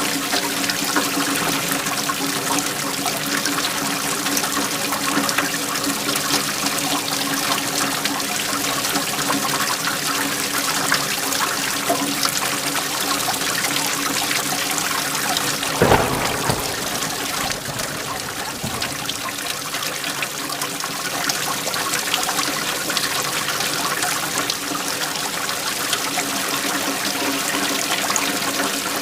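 Steady heavy rain hissing, over a faint steady hum. About sixteen seconds in, a single sharp crack of thunder.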